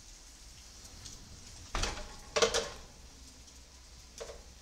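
A thump about two seconds in, then a quick run of metallic clanks with a short ring, and one more clank near the end: a pan of baked meatballs being taken out of the oven. A faint steady hiss lies underneath.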